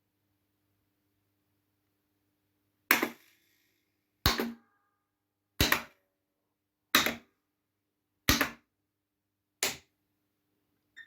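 Pinball machine solenoids firing: six sharp mechanical clacks at an even pace, about one every 1.3 seconds, starting about three seconds in, with a faint electrical hum underneath.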